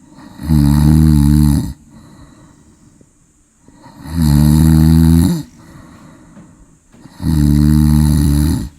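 Loud snoring: three long, even snores about three seconds apart, each lasting a little over a second, with softer breathing between them.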